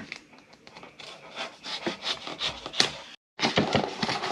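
Knife blade sawing through cardboard packaging in quick, irregular scraping strokes. The sound breaks off into dead silence for a moment a little after three seconds in.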